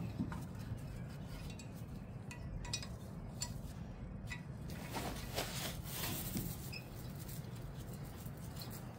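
Allen key turning the small retaining screw that holds a brake rotor to the hub, giving faint scattered metal clicks and clinks over a low steady hum.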